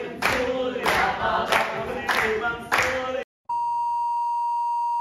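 A crowd of young people chanting or singing together and clapping in time, about one and a half claps a second. About three seconds in it cuts off abruptly, and after a brief gap a steady test-card beep tone takes over.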